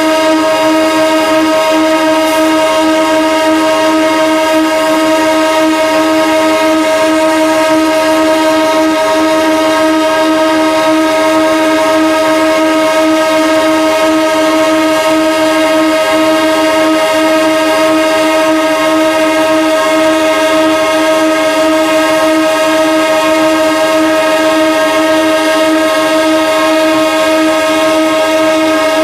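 Locomotive horn held in one long unbroken blast, loud and steady in pitch, its chord of held tones never pausing. It is sounded as a ceremonial salute rather than a warning.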